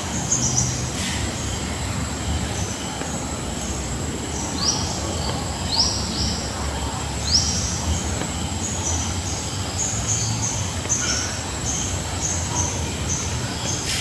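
Forest ambience: a constant high insect whine with many short high chirps and a few quick rising calls, over a steady low rumble.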